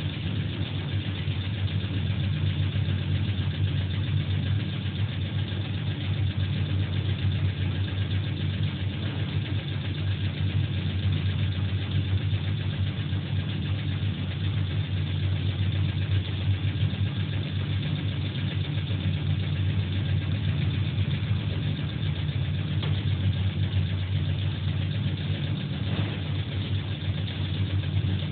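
Steady low machine drone with an unchanging hum: a pump motor running while a steel pressure vessel is pressurised with water for a hydrostatic test.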